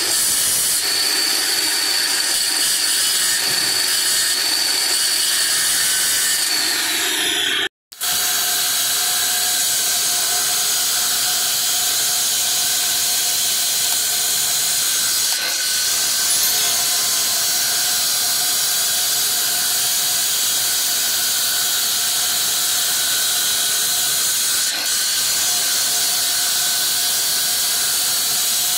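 Handheld electric marble cutter wet-cutting along the edge of a marble slab: a steady hiss with a high, even whine from the blade. The sound drops out for a moment a little under eight seconds in, then carries on.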